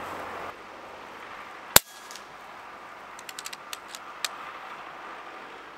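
A short-barrelled 6.35 mm PCP air rifle fires one shot: a single sharp crack about two seconds in, fairly loud for an air rifle because the short barrel launches a full-bore slug. A few much lighter clicks follow a second or two later.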